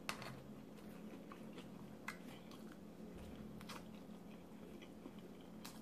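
Faint eating sounds from a breakfast burrito being picked up and bitten: soft chewing and a few light mouth and handling clicks, about four in all, over a low steady hum.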